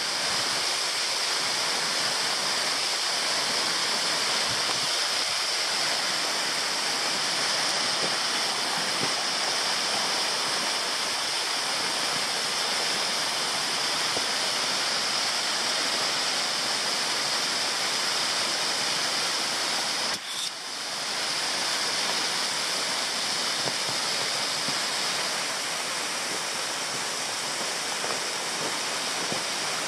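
A roughly 30-metre waterfall heard from its base: the steady, dense rush of falling water, in a good flow though a little on the low side. The sound cuts out briefly about two-thirds of the way through, then resumes.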